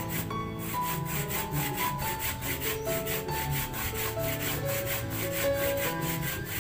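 Coconut being grated by hand on a wooden grater into a basin: quick rasping strokes, about four a second. Music plays underneath.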